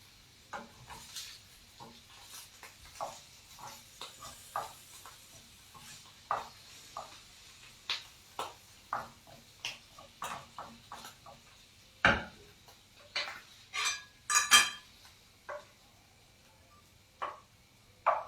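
Utensils clinking and tapping against dishes and cookware in a run of light, irregular taps, with a louder knock about twelve seconds in and a quick cluster of clatters a couple of seconds later.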